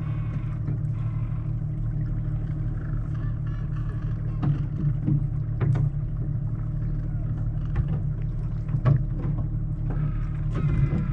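Penguins calling with pitched calls near the start and again near the end, over the steady low hum of a boat engine. A few sharp knocks come in the middle.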